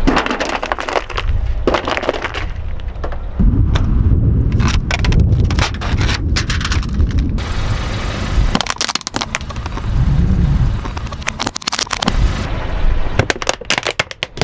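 A car tyre rolls slowly over aluminium foil trays, crushing them with bursts of crinkling and crackling. In the second half it crushes a plastic lattice basket with repeated cracks. A low rumble from the rolling tyre runs underneath.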